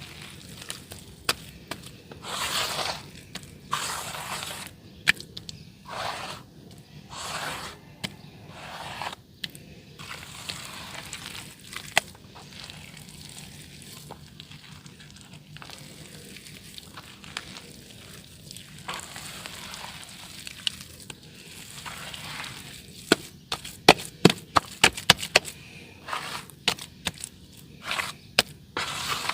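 Soft dirt crumbling and breaking apart in water: several swells of crumbling and crackle in the first ten seconds, a quieter crackling stretch, then a quick run of sharp cracks and snaps from about 23 seconds in.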